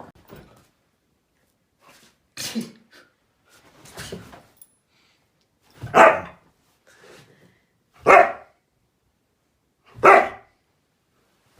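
Dog barking: two softer short calls, then three loud single barks about two seconds apart.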